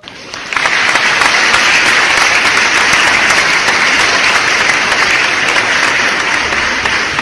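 Steady applause of many hands clapping, coming in abruptly about half a second in and holding at an even level throughout.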